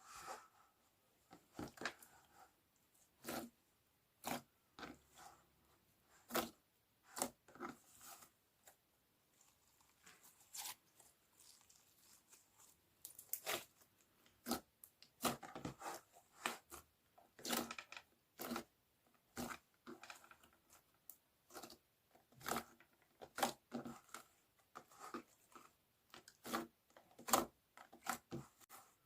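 Slime being squeezed and poked by hand, making irregular short crunchy crackles and pops, sparse at first and coming in denser clusters about halfway through.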